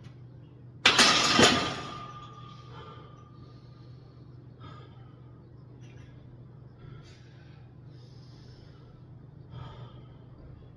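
An 80 kg barbell clanks down onto a steel rack about a second in: one loud metallic crash with a ringing tone that fades over a couple of seconds. After it, a man breathes hard every few seconds, resting mid-way through a rest-pause set of overhead presses.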